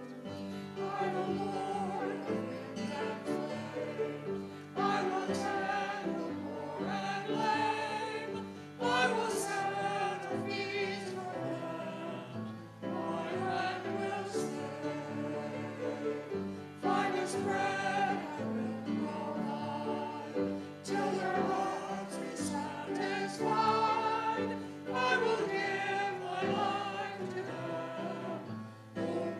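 A small mixed group of men and women singing a hymn together, in phrases of about four seconds each.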